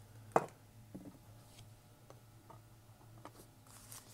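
A sharp plastic click as a trading card is set into a clear acrylic card stand, then a few faint taps and clicks, over a low steady hum.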